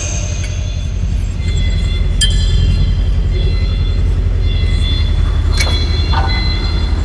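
Heavy-duty truck's diesel engine running with a steady low rumble, with a few sharp metallic clinks a couple of seconds in and again near the end.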